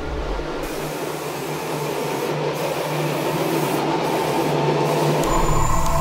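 Airbrush spraying paint: a steady hiss that thins out briefly three times, over a low steady hum.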